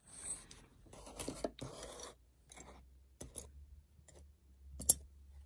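Hands handling Beyblade parts, hard plastic and metal pieces, on a tabletop. There is scraping and rustling for about the first two seconds, then a few light clicks, and one sharp click near the end as a metal fusion wheel is picked up.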